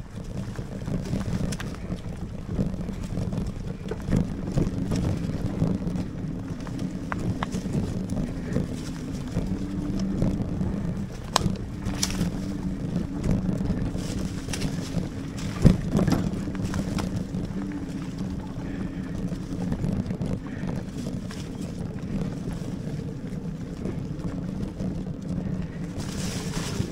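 A Lectric Xpeak e-bike with 26x4 fat tyres being ridden over a muddy trail: a steady rumble of the tyres on the ground, with rattles and knocks from the bike and wind on the microphone. There is one sharp, louder knock about sixteen seconds in.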